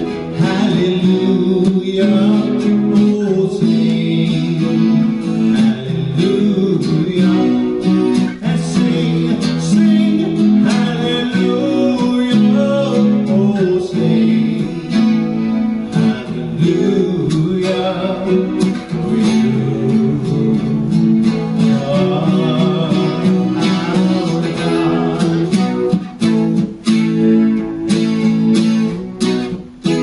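A man singing while strumming an acoustic guitar; toward the end the strummed chords come through more on their own.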